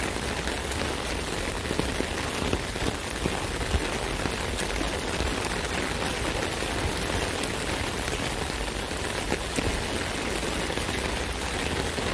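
Steady rain pattering on an umbrella canopy, a dense even hiss of drops with scattered louder individual hits.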